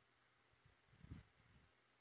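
Near silence: faint steady hiss of room tone, with a few soft low bumps about a second in.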